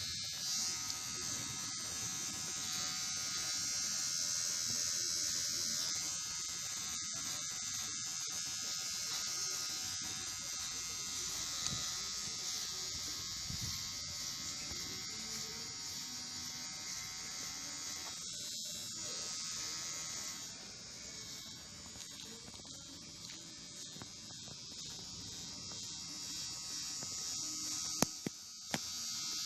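Kemei KM-2850 electric hair clipper running steadily with a continuous buzz while cutting hair, with a couple of sharp clicks near the end.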